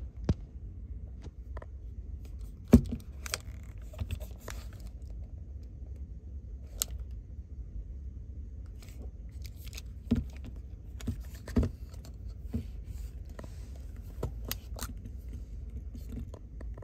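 Handling sounds of a Canon Demi EE17 metal-bodied film camera being turned over in the hand: scattered sharp clicks, taps and light scrapes, the loudest about three seconds in, over a steady low hum.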